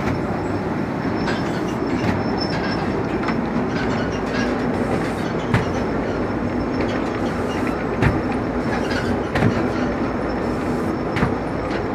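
A steady rumbling, clattering din, with about four dull thuds of heavy cement bags dropped onto a stack of sacks, the first around the middle and the last near the end.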